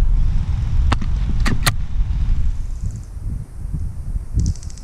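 Low rumbling wind and handling noise on the microphone, broken by three sharp clicks between about one and two seconds in. A brief fast, high-pitched rattle comes near the end.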